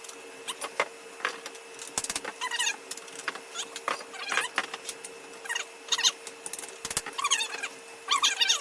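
3D-printed plastic furniture parts being pushed together by hand: a run of quick clicks and knocks, with short squeaks of plastic rubbing on plastic as the printed connectors slide into their sockets.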